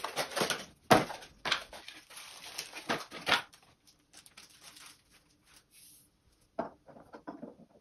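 Hands handling a lamp cable and its small fittings: a run of rustling and clicking with two sharper clicks, about a second in and just after three seconds. After that it goes mostly quiet with a faint hum, and a short rustle comes near the end.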